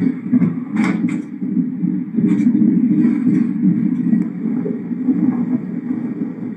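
Diesel multiple-unit passenger train running along the track, a steady low rumble with a few short sharp clicks in the first two seconds or so.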